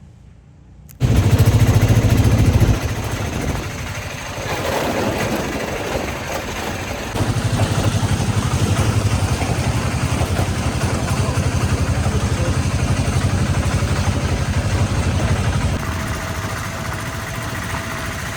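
A small vehicle engine running close by with a steady pulsing low note. It comes in abruptly about a second in and picks up again about seven seconds in.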